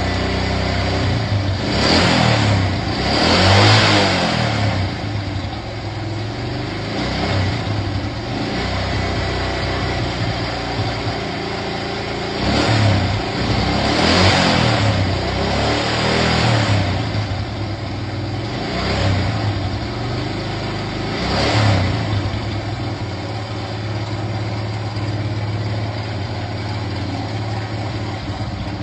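Small Honda engine running at idle and being blipped up in short revs about half a dozen times, settling back to idle between them.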